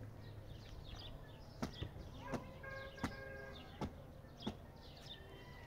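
Outdoor farmyard sounds: a few sharp knocks spaced irregularly, over many small high chirps like birds. A short pitched animal-like call about three seconds in, and a thin high tone near the end.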